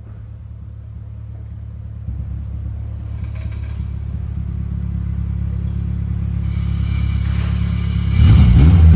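Honda K20 engine running through a new aftermarket exhaust: a steady low exhaust rumble that grows gradually louder, then turns much louder and sudden about eight seconds in.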